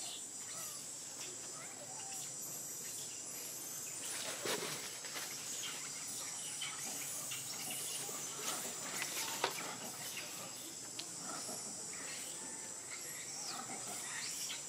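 Outdoor tree-canopy ambience: a steady high-pitched insect drone, with scattered short chirps and two brief sharp sounds about four and a half and nine and a half seconds in.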